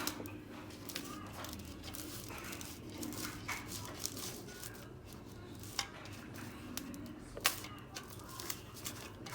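Faint handling noises as shortcrust tart dough is pressed by hand into a tart mould, with a few light clicks and taps against the tin.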